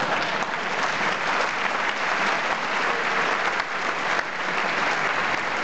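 A large audience applauding: many hands clapping at once, dense and even.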